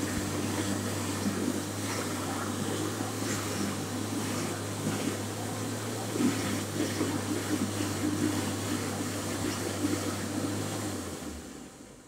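Airstream 5000 push-button hand dryer blowing hot air with a steady motor hum, then timing out about eleven seconds in and winding down.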